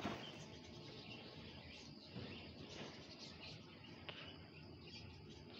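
Near silence: quiet room tone with faint high chirps in the background and a small tick about four seconds in.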